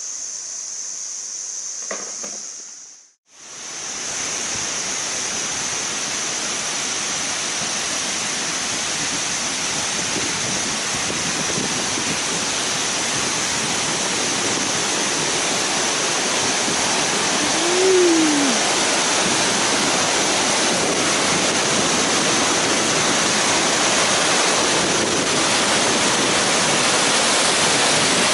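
Waterfall rushing steadily, a dense even roar of falling water that slowly grows louder, with a high steady insect drone above it. The sound drops out abruptly about three seconds in before the water noise sets in, and a short rising-and-falling call comes about two-thirds of the way through.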